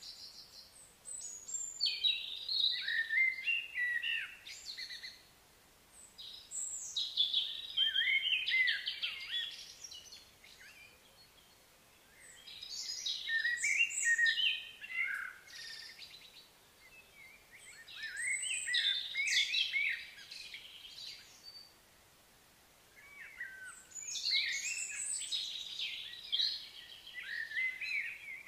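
A songbird singing in long, varied phrases of a few seconds each, five of them with short pauses between.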